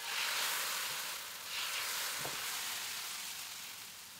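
Thin neer dosa batter of rice flour and coconut sizzling as it is ladled onto a hot nonstick tawa: a steady hiss that swells again about one and a half seconds in, then slowly fades.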